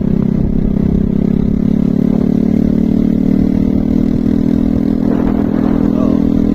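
Motorcycle engine running steadily while riding along a gravel road. Its note rises a little over the first few seconds and then holds, over a low rumble.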